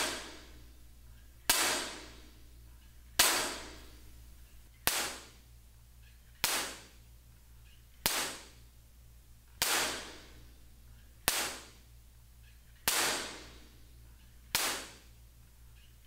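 A sharp clap-like impulse repeated about every second and a half, ten times, each followed by a brief decaying ring of room reverberation: test claps showing how a small room's walls reflect sound, heard bare and then fitted with absorber and diffuser panels.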